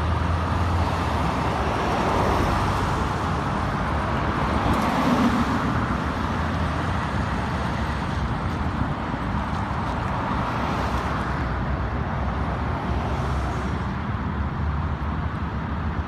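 Road traffic: a semi-truck's diesel engine and passing cars and pickups, a steady rumble of engines and tyres that swells briefly about five seconds in.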